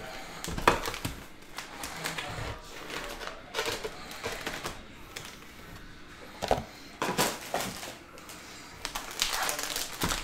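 Foil-wrapped trading card packs crinkling and rustling as they are taken out of a cardboard hobby box and handled, with irregular clicks and taps.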